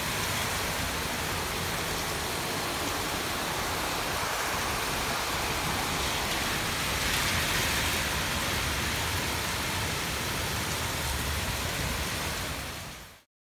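Heavy tropical-storm rain pouring steadily as a dense hiss, with a low rumble underneath. It swells slightly midway and fades out just before the end.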